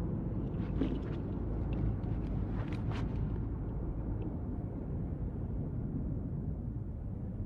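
Low, steady rumble with a few faint clicks and ticks in the first three seconds.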